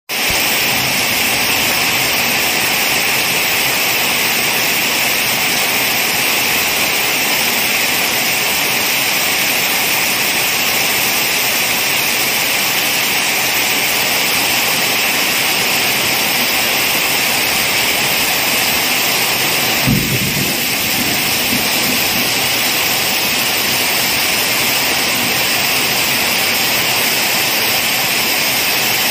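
Heavy rain falling steadily on a vegetable garden, pattering on leaves, plastic pots and puddled ground. About twenty seconds in there is a brief low thump.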